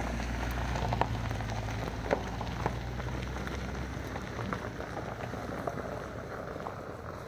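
A vehicle engine idling as a low hum that fades away after about four seconds, under irregular crunching footsteps.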